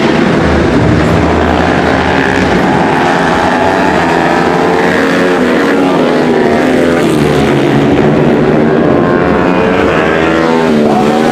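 Several tuned Honda CRF150L single-cylinder four-stroke supermoto bikes running together, their engine notes overlapping and rising and falling in pitch as they rev.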